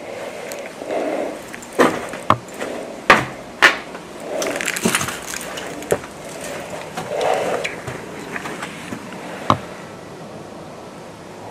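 Several sharp cracks and snaps of wood and debris, the loudest in the first four seconds. Between them, slow breathing through a respirator rises and falls every few seconds.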